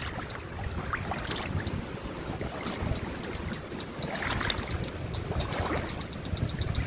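Creek water flowing, with wind rumbling on the microphone. A fast, even run of high ticks comes in during the second half.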